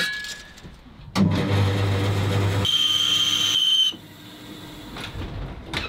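Bandsaw starting up and cutting an oak board: a steady motor hum begins suddenly about a second in, with a high steady whine joining near the middle. The level drops sharply about four seconds in to a quieter running noise.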